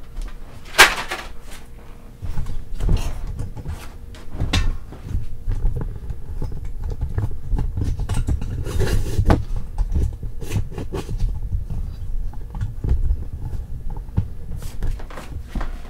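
Knocks, clicks and clatter of things being handled and set down, a sharp knock about a second in being the loudest, over a low rumble from about two seconds in.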